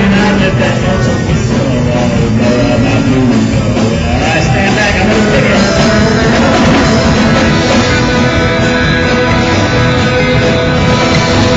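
Rock and roll music with guitar, playing steadily without transcribed vocals.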